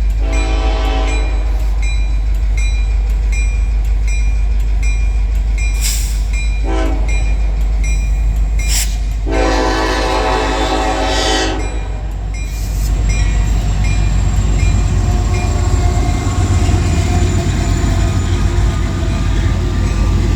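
Diesel locomotive air horn sounding three times, a blast of about a second, a very brief toot and then a longer blast, over the steady low rumble of the locomotives' engines. The engine rumble grows louder in the second half as the lead units pass close by.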